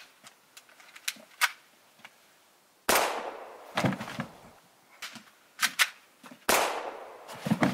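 Two pistol shots about three and a half seconds apart, each with a long echoing tail, with smaller sharp knocks in between. The shots are executions of two men, each shot in the neck.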